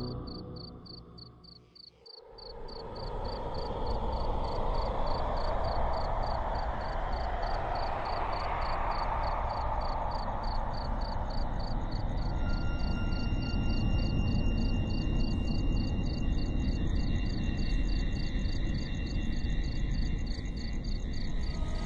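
Crickets chirping in a steady pulse, about four chirps a second, over a low, noisy drone. The drone drops almost to nothing about two seconds in, then swells back up and holds, and thin steady high tones sound through the second half.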